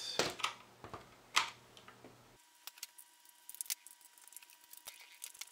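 Small screwdriver turning machine screws into a 3D-printed plastic blaster shell: scattered small clicks and ticks of the driver and plastic parts, with a run of quick faint ticks in the second half.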